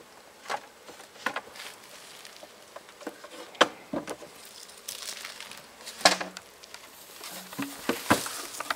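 Wooden beehive parts knocking and scraping as a metal hive tool pries and handles the frames: a string of sharp, irregular clicks and knocks, the loudest about 3.5 s and 6 s in. Honeybees buzz in short passes near the end.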